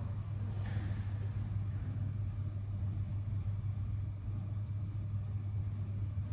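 Steady low hum of room tone, with a brief soft rustle about a second in.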